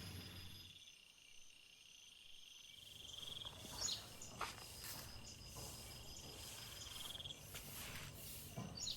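Crickets trilling faintly and steadily in a high pitch, with a few short sharp sounds about four seconds in.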